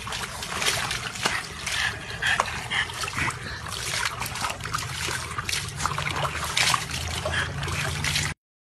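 Irregular water splashing and trickling, which cuts off suddenly near the end.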